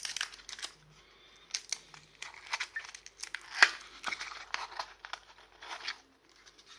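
Packaging crinkling and rustling in irregular bursts as the robot vacuum's battery pack is taken out of it, with one sharper crackle a little past halfway.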